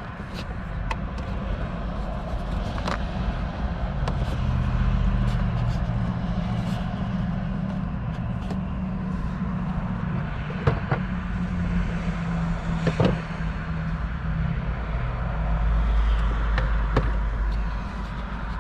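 A vehicle engine running with a steady low hum that swells and eases a little, and a few short sharp clicks over it.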